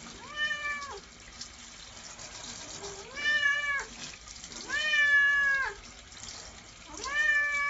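A long-haired cat meowing four times, each meow drawn out and fairly level in pitch for under a second to about a second, over a steady hiss. The fourth meow is still going at the end.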